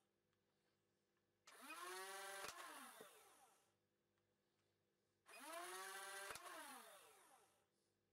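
Faint sound of a Dart Zone Thunderbolt battery-powered flywheel blaster firing two shots about four seconds apart, starting about one and a half seconds in. Each time the flywheel motors whine up, a dart is fired with a sharp click, and the motors whine down again.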